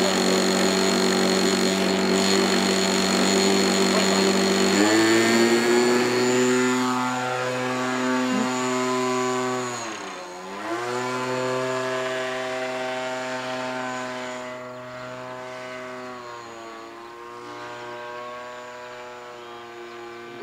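Small model-airplane engine of a vintage RC plane running under power, a steady buzzing drone that changes tone abruptly about five seconds in. In flight its pitch dips briefly twice as the plane turns overhead, and it fades as the plane climbs away.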